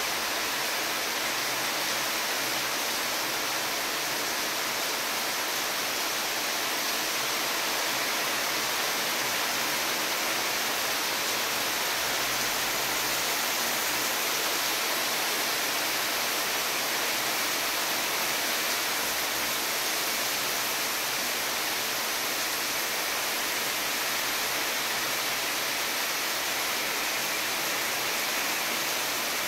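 Heavy rain falling, a steady, even hiss that does not let up.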